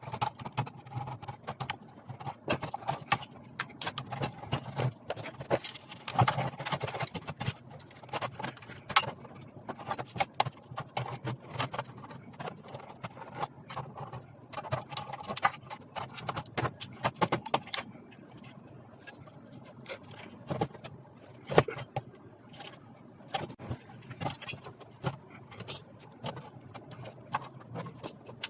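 Irregular clicks, taps and light knocks of hands handling tools and inverter parts during a repair, over a low steady hum.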